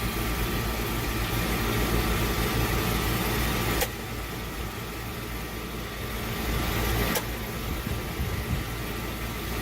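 Champion 8750-watt gasoline inverter generator running steadily, with two sharp clicks about four and seven seconds in as the transfer-switch breakers are thrown from line power to the generator.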